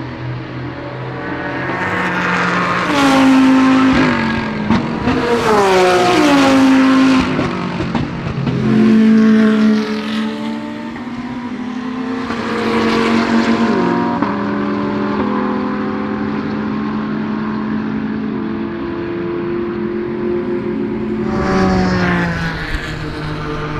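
GT3 race cars passing one after another at racing speed, several swells of engine sound in a row. Their engine notes step down in pitch repeatedly as they downshift.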